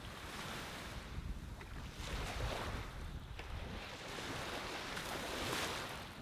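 Small ocean waves washing onto a sandy beach, the hiss swelling and fading about three times, over a low rumble of wind on the microphone.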